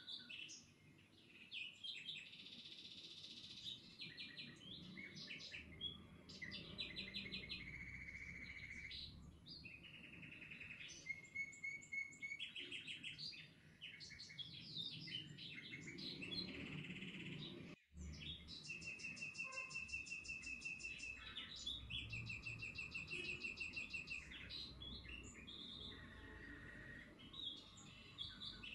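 Several small birds chirping and singing, with many overlapping short calls and rapid trills, over faint low background noise. The sound cuts out for an instant about two-thirds of the way through.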